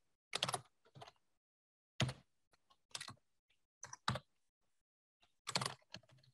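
Typing on a computer keyboard: short, irregular bursts of a few keystrokes each, about one burst a second.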